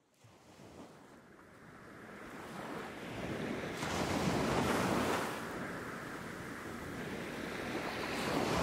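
Ocean surf: waves washing and breaking, a steady rush that builds over the first few seconds, peaks about halfway, eases, and swells again near the end.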